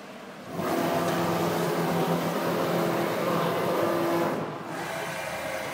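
CNC router machine running: a steady motor whine over a hiss, starting suddenly about half a second in and dropping to a quieter run a little after four seconds.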